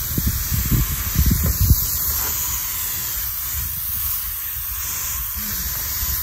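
Steady hiss of a fine water spray misting freshly sown seed trays, wetting just the top of the soil. A few soft low knocks come in the first two seconds.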